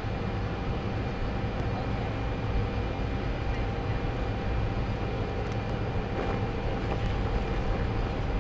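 A parked jet aircraft running: a steady low rumble with thin, unchanging whining tones over it.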